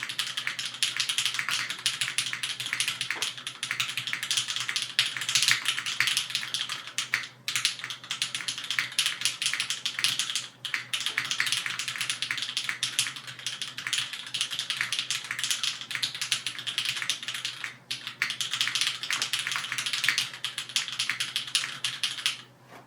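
Fast, continuous typing on a LifeZone CLS mechanical keyboard with lubed, retooled Cherry MX Black linear switches in a top-mounted aluminium plate, under GMK keycaps. A dense patter of keystrokes breaks off in three short pauses and stops just before the end.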